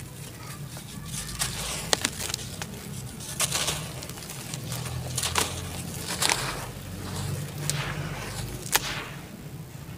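Hands crumbling and crushing dry red dirt over a basin of water: a gritty, crunchy rustle as the powder and crumbs pour and patter onto the water, broken by several sharp crunching clicks as lumps snap.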